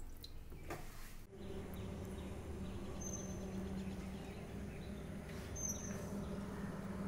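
Water running faintly into a pot for about the first second, then outdoor ambience: a steady low hum with a few short, high bird chirps.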